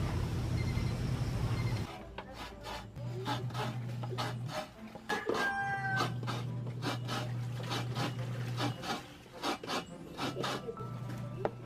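Repeated rasping, scraping strokes, roughly two a second, over an on-and-off low hum.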